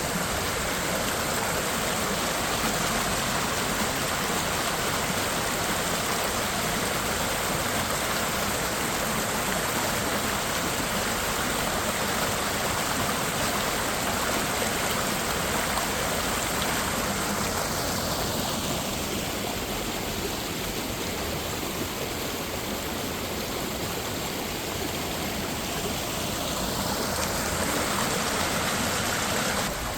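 Minnehaha Creek and Falls: a steady, even rush of flowing and falling water. Through the second half a faint slow sweep passes over the rush.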